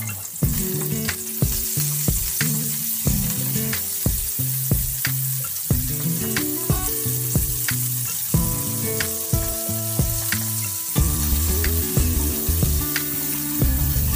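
Hot oil sizzling in a wok as minced chicken and sliced chilies fry with garlic and shallots, stirred now and then. Background music with a steady beat plays throughout.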